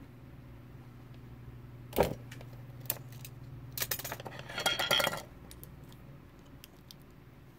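Small metal hand tools handled on a workbench: a sharp knock about two seconds in, then a burst of metallic clinking and jingling lasting about a second and a half, as the soldering iron is put down and a pair of cutting pliers picked up. A low steady hum runs underneath.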